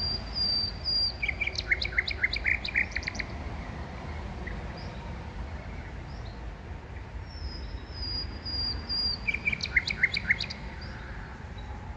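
A songbird singing a short phrase twice, about seven seconds apart: a few thin high notes, then a quick run of sharp falling notes.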